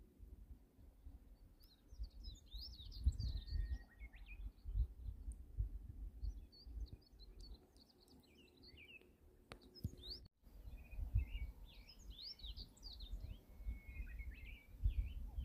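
Birds chirping and twittering in quick, varied phrases, over an uneven low rumble. The sound drops out for a moment about ten seconds in.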